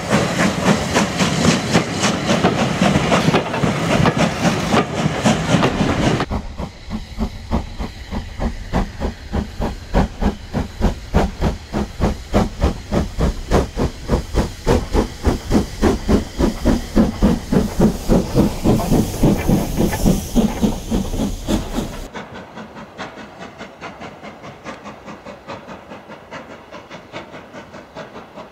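Passenger coaches running past close by, their wheels clicking over the rail joints. Then an SR Q class 0-6-0 steam locomotive working towards the listener, its exhaust a rapid, even chuffing that grows louder, with steam hiss. Near the end a quieter steam train puffs away in the distance.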